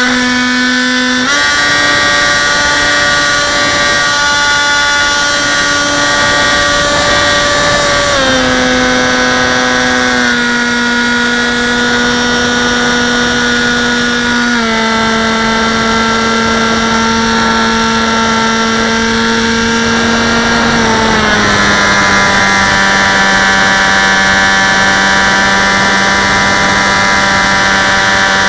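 Brushless electric motor and propeller of a Dynam Hawk Sky RC plane whining in flight, heard from a camera mounted on the plane. The pitch steps up a little about a second in, then drops in several stages as the throttle is eased back, ending lowest near the end.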